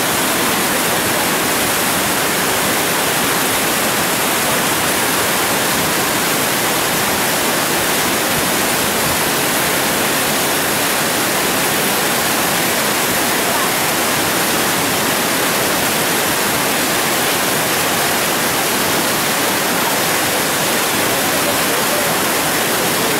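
Floodwater rushing under a raised reservoir sluice gate, a loud, steady rush of falling, churning water.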